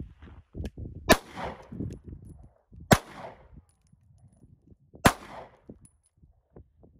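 Three pistol shots about two seconds apart, each sharp crack followed by a short trailing echo.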